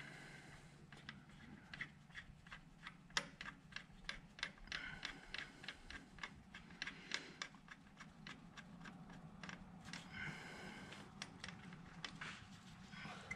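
Irregular light clicks and metallic clinks of hand tools and small metal parts, a few of them ringing briefly, as work goes on at the backhoe's engine.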